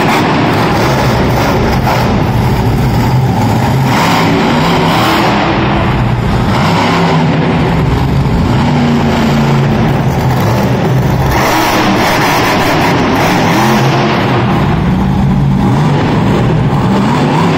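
Bone Shaker monster truck's engine, loud, revving up and down repeatedly as the truck wheelies and drives hard around the arena floor.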